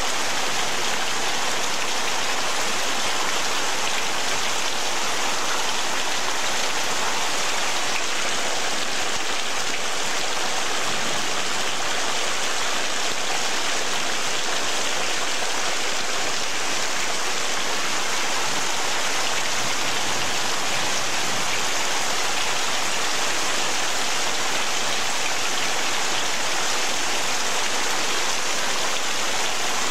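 Heavy rain pouring down steadily on trees, ground and a patio, a dense even hiss with no let-up.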